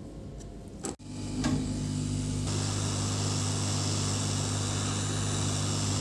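Hot air rework station blowing steadily, starting about a second in: a fan hum with a rushing hiss of air.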